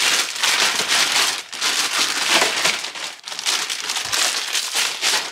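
Packaging crinkling and rustling as a battery is unpacked, in a near-continuous rustle with a few brief breaks.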